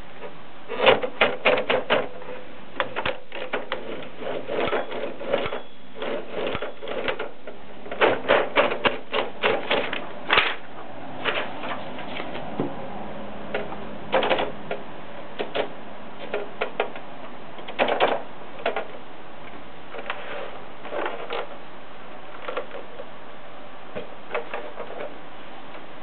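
1968 MONPTI portable typewriter's mechanism worked by hand, clicking and clacking in irregular bursts of rapid clicks. The busiest runs come about a second in, from about eight to ten seconds in, and again around eighteen seconds.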